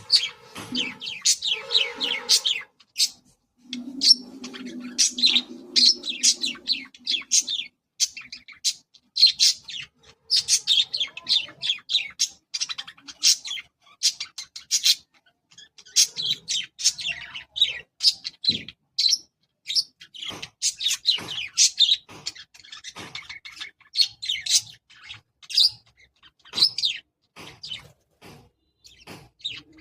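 Pet budgerigars (budgies) chirping and warbling in a stream of short, rapid calls, with some lower-pitched chatter in the first several seconds.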